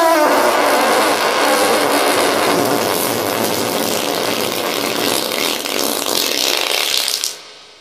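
Long fart sound effect: a pitched blat falling in pitch at the start breaks into a drawn-out noisy rasp that fades away near the end.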